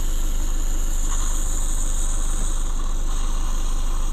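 Van engine idling steadily with a constant low hum, its alternator charging the house battery at 40 amps through a DC-to-DC charger.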